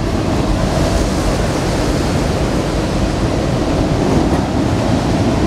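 Empty coal train's open cars rolling past close below, a steady noise of steel wheels on rail.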